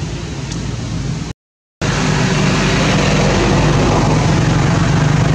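Steady low engine hum, as of a motor vehicle running. It drops out to silence for about half a second near a second and a half in, then carries on slightly louder.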